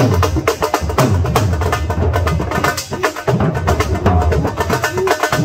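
Dhol drumming: a double-headed barrel drum played fast with sticks, deep booming strokes under a rapid, even run of sharp cracking strokes.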